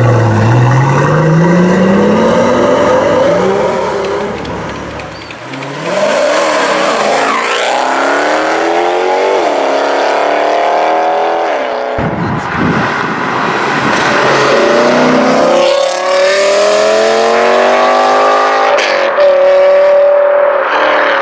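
Pagani Huayra's twin-turbo V12 pulling away, its pitch rising as it accelerates. Then other performance cars accelerate hard, engine pitch climbing and dropping at each upshift, with abrupt cuts between them.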